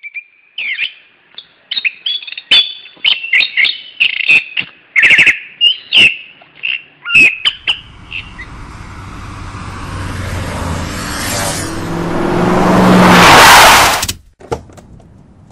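Birds chirping in short bursts for the first eight seconds or so, then a car approaching and growing steadily louder before cutting off suddenly about fourteen seconds in as it stops.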